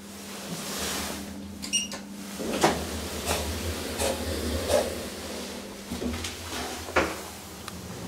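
Elevator's sliding stainless-steel car doors in motion, giving a series of sharp clacks and rattles. A steady hum stops about two and a half seconds in, and a short high beep sounds just before it.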